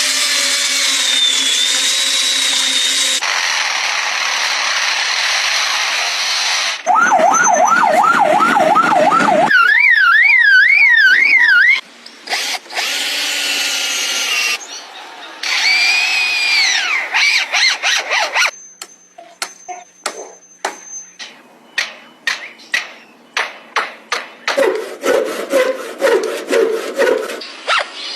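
A lyrebird mimicking man-made sounds in a run. It begins with a harsh drill-like buzzing, then gives a fast warbling siren-like alarm and some whistles, then a long series of sharp clicks like a camera shutter, and near the end a quick burst of low pulsed notes.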